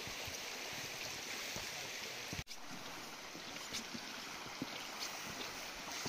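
Rushing woodland stream: a steady rush of water flowing over rocks, cutting out for an instant about two and a half seconds in.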